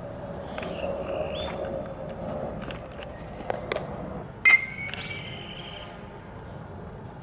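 A single sharp smack about four and a half seconds in: a thrown baseball landing in a leather fielder's glove at the plate. It is preceded by a few light clicks and followed by a brief ringing tone, over steady outdoor background.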